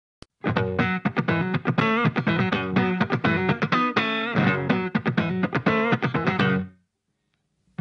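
Intro music led by a plucked electric guitar, playing quick notes, stopping short a second before the end.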